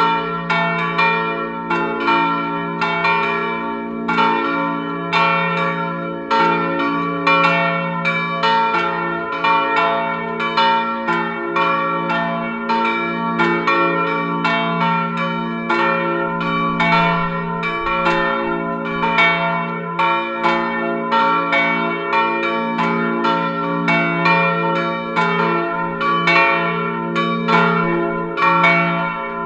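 Full peal of three swinging bronze church bells, tuned to f', b' and d'' and weighing about 850, 450 and 250 kg, cast in 1988 by the Janusz Felczyński foundry in Przemyśl. Their strokes overlap in an irregular, continuous ringing, about two strikes a second, each note hanging on under the next.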